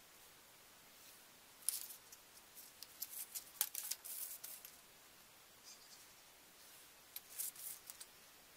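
Faint scratching of a pen drawn along a steel ruler on cardboard, in several short strokes, with a sharp click about three and a half seconds in as the ruler and sheet are moved.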